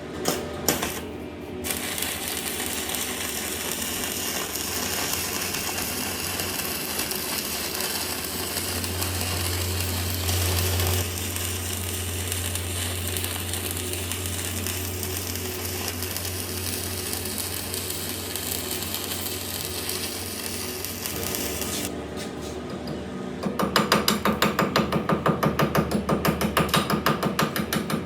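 Electric arc welding on a steel shaft joint: a steady crackling hiss with a low hum that runs for about twenty seconds. After a short pause, rapid, even hammer strikes on metal, about five a second, start near the end.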